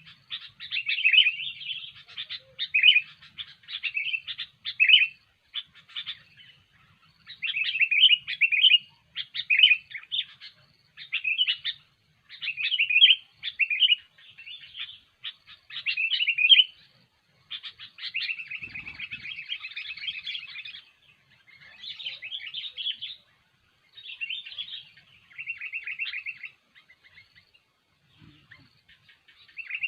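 Sooty-headed bulbul (kutilang) singing in lively, repeated bursts of short chirpy phrases. A longer run of fast chattering notes comes about 18 seconds in and again near 25 seconds.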